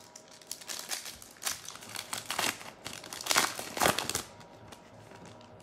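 Wrapper of a basketball trading-card pack crinkling and tearing as it is ripped open: a run of rustles and crackles, loudest between about three and four seconds in.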